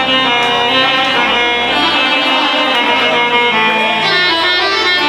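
Loud instrumental music from the accompanying band, a dense passage without singing.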